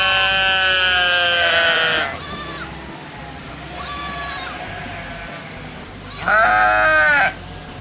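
Sheep bleating: a long, loud bleat at first, then two fainter short bleats, and another loud bleat near the end.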